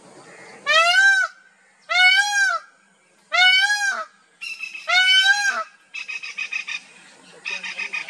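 Male Indian peafowl (peacock) giving its loud wailing call four times in a row, each call rising then falling in pitch, followed by a fast stuttering run of short notes.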